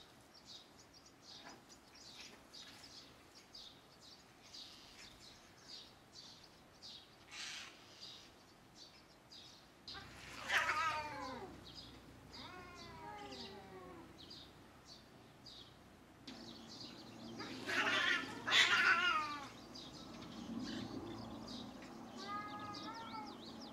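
Domestic cats yowling at each other in a territorial standoff. A few long cries falling in pitch come about ten seconds in, louder outbursts follow around eighteen seconds, and a shorter cry comes near the end.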